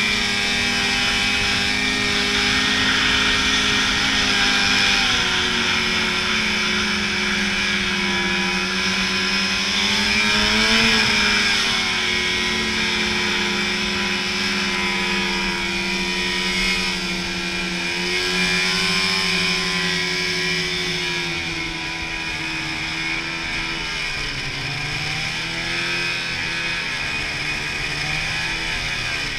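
Snowmobile engine running at a steady cruising pace under a steady hiss. The engine pitch rises briefly about eleven seconds in, then dips and climbs again near the end.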